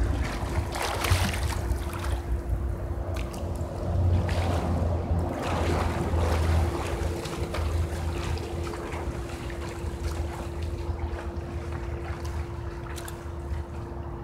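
Pool water splashing and lapping as a person swims, heaviest about a second in and again around four to six seconds in. Under it runs a steady low rumble and a constant faint hum.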